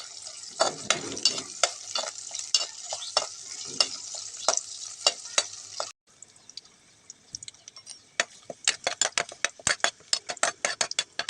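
Food sizzling in a pan while a spoon stirs it, clicking and scraping against the pan. About six seconds in, the sound cuts and returns with a fainter sizzle, and from about eight seconds the spoon clicks come quickly and regularly, several a second.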